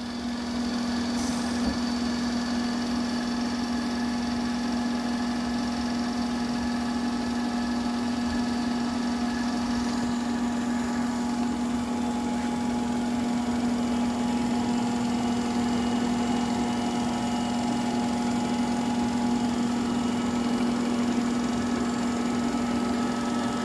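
Phillips gun drilling machine running under power, its drill head feeding along the slide: a steady electric-motor hum with a strong low tone. A faint high whine stops about halfway through.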